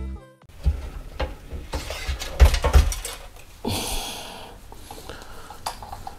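Handling noise of a 360 mm all-in-one liquid cooler being lifted out of a PC case: irregular knocks and clicks of the radiator, fans and tubing against the case, loudest a little before halfway, with a short rustle about four seconds in.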